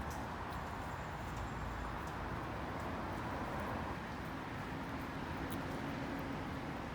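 Steady outdoor background noise, a hiss with a low hum beneath it, with a few faint scattered clicks.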